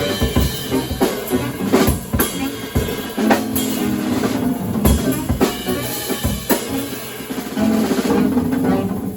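Live drum kit solo: bass drum and snare hits with rimshots in a fast, busy pattern.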